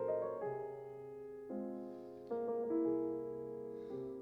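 Piano music: slow, held chords, a new chord struck about every second.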